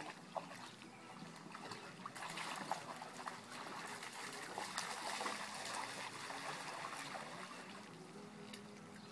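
Water splashing and sloshing as dogs wade through shallow water pooled on a mesh pool cover. The splashing builds up to its loudest about halfway through, then eases off.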